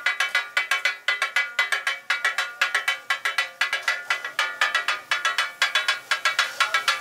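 Two steel spatulas chopping green chillies on a flat steel tawa griddle: rapid metallic clanging strikes, several a second, each ringing briefly.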